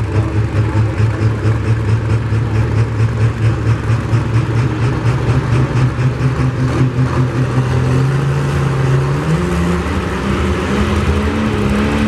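Super modified pulling truck's engine idling hitched to the pulling sled, with a heavy, uneven pulsing beat. About eight seconds in the revs step up and hold higher.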